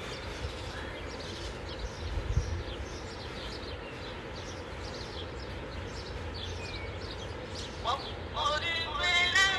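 Seaside ambience: a steady rush of surf and wind with many short high bird chirps over it. Music with a melodic voice comes in near the end.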